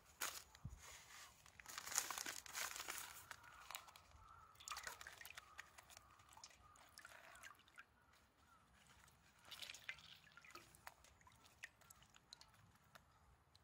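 Faint crinkling of wet newspaper with small splashes and drips of water as newspaper-wrapped sweet potatoes are dunked and squeezed in a metal bowl of water. Quiet, irregular crackles come and go throughout.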